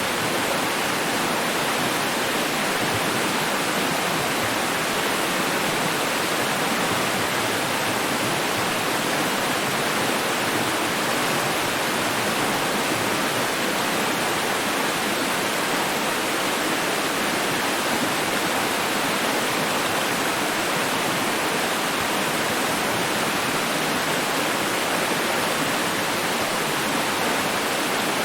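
Running water giving a steady, even rush that does not change.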